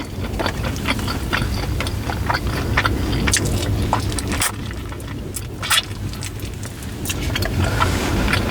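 Close-up eating sounds, with irregular wet clicks and smacks of chewing pizza and chicken wings, over the steady low hum of a car.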